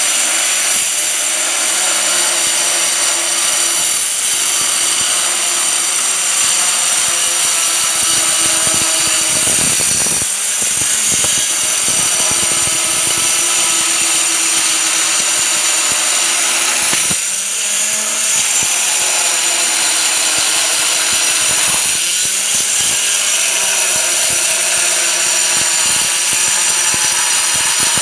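Stone-cutting saw running under load as its blade cuts stone, a loud, steady high-pitched whine and grinding that eases briefly about ten, seventeen and twenty-two seconds in.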